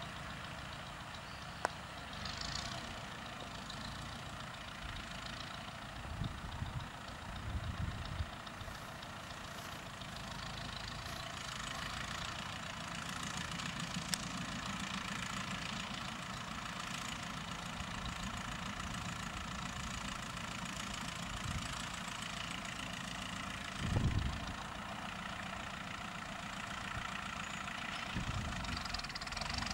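Ferguson TEF-20 tractor's four-cylinder diesel engine running steadily as it pulls a springtine grass harrow. A brief low thump comes about three-quarters of the way through.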